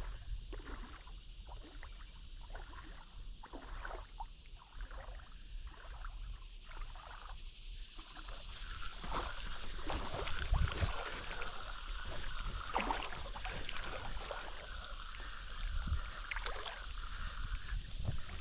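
Water splashing and lapping around a kayak on the river. A run of short, light splashes comes first, and the water grows busier and louder from about halfway through.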